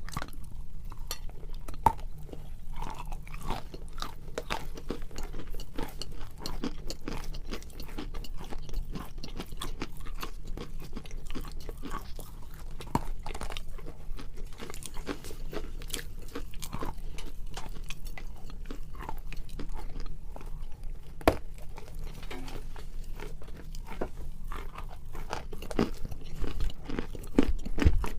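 Pieces of chalk bitten and chewed close to the microphone: a continuous run of dry, crisp crunches, with a few sharper, louder bites about two seconds in, around twenty-one seconds and near the end.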